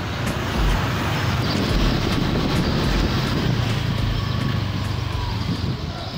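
Motorcycle riding along a town road: steady engine running under road and wind noise.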